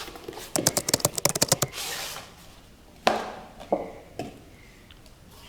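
Cardboard microphone box being handled and opened: a quick run of crackling clicks, a brief scraping rustle, then three soft knocks.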